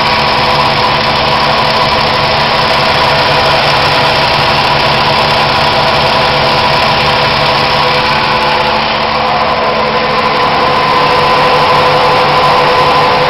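Propane bobtail truck's hydraulically driven Corken Z3500 pump running under load, flowing about 92 gallons a minute through a 1-inch hose reel: a loud, steady mechanical drone with a constant whine. It eases slightly about nine seconds in, then picks back up.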